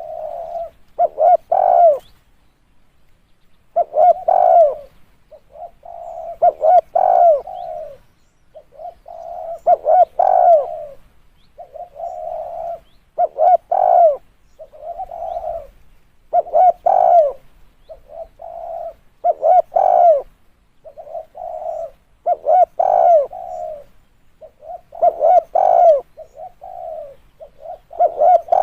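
Spotted dove cooing, repeating its call phrase about every three seconds.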